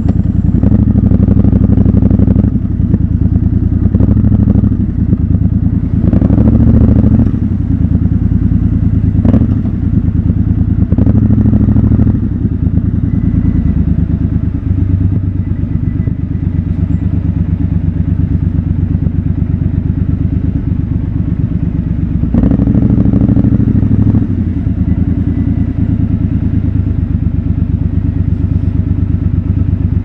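Triumph Scrambler 1200 XC's parallel-twin engine running at low speed close to the microphone, with four short blips of throttle spread through, otherwise running steadily at low revs.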